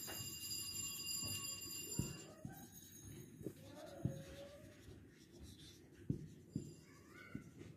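Felt-tip marker writing on a white board: a run of short scratchy strokes with a few faint squeaks as a word is written out.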